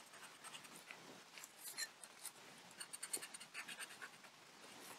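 Faint, light scratching of a pointed tool across shrink-plastic sheet, scoring small non-slip scratches into its surface: many short, irregular scrapes.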